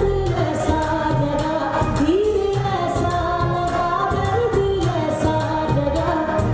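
A song playing for the dance: a voice singing a gliding melody over a steady low beat.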